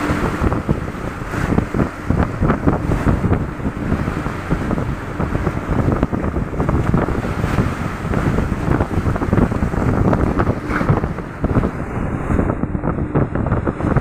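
Seawater washing across a ship's deck and waves breaking over the side, splashing and sloshing unevenly, with heavy wind rumbling on the microphone.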